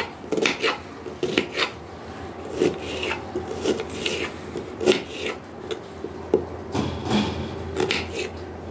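Small knife dicing an onion on a white plastic cutting board: irregular knocks of the blade on the board, one or two a second, with crisp cuts through the onion.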